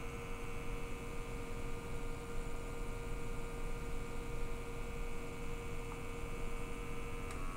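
Steady low mechanical hum from the gas detector and calibration station as the station runs the 100 ppm carbon monoxide calibration gas. A faint steady tone over the hum stops shortly before the end, about when the detector saves the CO calibration, and a slightly different hum takes over.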